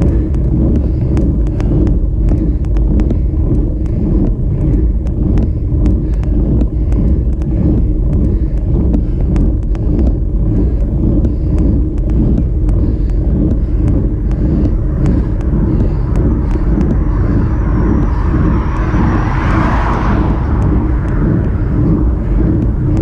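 Steady wind and road rumble on the microphone of a camera mounted on a road bicycle climbing, with frequent small ticks. Near the end a car swells up and passes.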